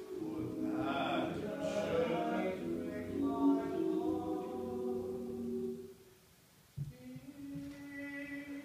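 Young men's a cappella group singing held chords in close harmony. About six seconds in the singing stops, a short knock follows, then a softer, lower chord is held.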